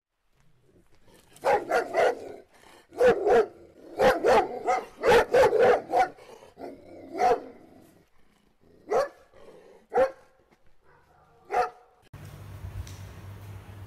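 A dog barking repeatedly, in quick runs of barks at first and then single barks a second or two apart.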